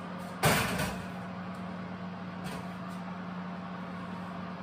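Steady hum of a fan oven running with its door open, and about half a second in a short, loud clatter of a metal baking tin going onto the oven shelf.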